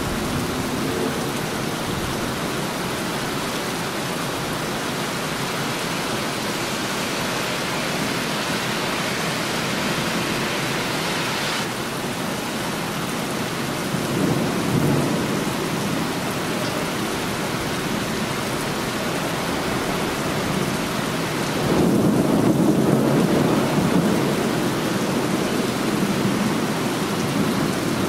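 Heavy rain falling steadily, with thunder rumbling twice: once about halfway through and again, louder and longer, about three-quarters of the way in.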